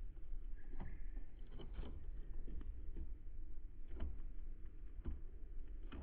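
Irregular light taps and knocks of birds pecking and landing on a feeder close to the microphone, over a low rumble, with a brief steady high note about a second in.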